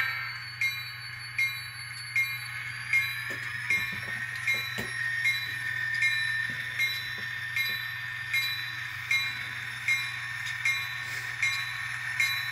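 Sound decoder of an N scale BNSF diesel model (Atlas Gold Series with ESU LokSound) playing through its tiny speaker: the locomotive bell ringing steadily, about one strike every three-quarters of a second, over the diesel engine sound, which rises in pitch a few seconds in as the model starts to move forward.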